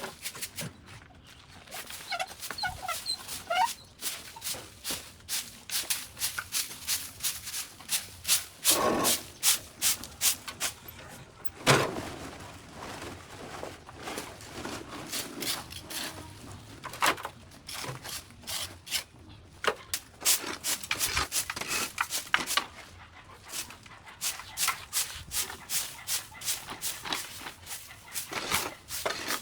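Irregular sharp chopping strikes, a few a second, from hand tools hacking through overgrown vines and brush.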